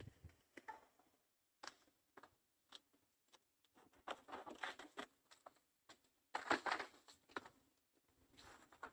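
Faint rustling and crackling of a banana leaf being cut and pulled from the plant, in two short spells about four and six and a half seconds in, with scattered small snaps between.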